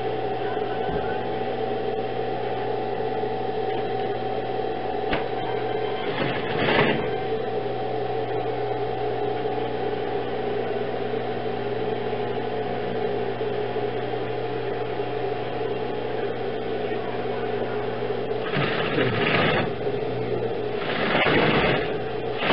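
Industrial sewing machine running steadily as it stitches cloth. There is a brief louder, noisier spell about six seconds in and two more near the end.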